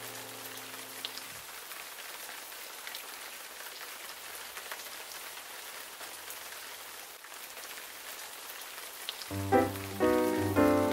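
Relaxing background soundtrack: a held chord fades out in the first second or so, leaving a steady soft hiss with faint scattered ticks. About nine seconds in, a melody of short pitched notes begins.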